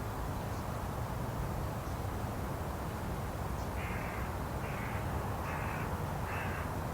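Japanese tit giving four harsh, buzzy 'jee-jee' calls in the second half, each about half a second long, over a steady low rumble.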